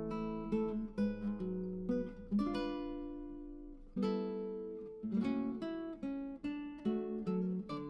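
Background music: acoustic guitar playing plucked and strummed chords, each letting ring before the next.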